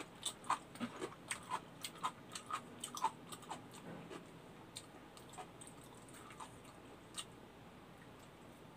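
A man chewing a mouthful of kimchi and rice with his mouth open, making a run of short wet smacking clicks. The clicks come thick and fast for the first few seconds, then thin out to an occasional one.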